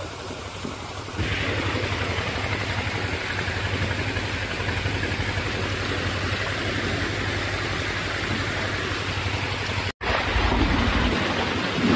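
A diesel tubewell pump engine running steadily with a low hum. From about a second in, water gushes loudly from the pump outlet. The sound drops out for an instant about ten seconds in.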